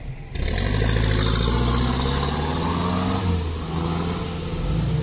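Off-road 4x4's engine revving under load as it drives through a muddy track, starting abruptly about a third of a second in and holding steady, with a brief change in pitch about three seconds in.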